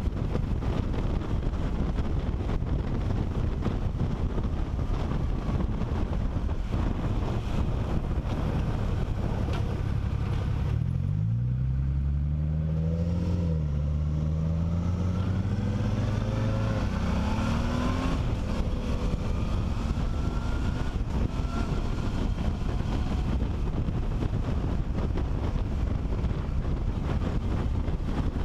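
Wind rushing over a helmet-mounted camera on a moving motorcycle. About eleven seconds in the wind drops as the bike slows for a turn, and its engine is heard pulling away, the note rising, dipping at a gear change and rising again. The wind noise then builds back up.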